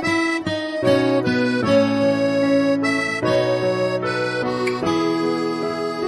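Background instrumental music: a melody of held, reedy notes over chords, changing note every fraction of a second, with no drums.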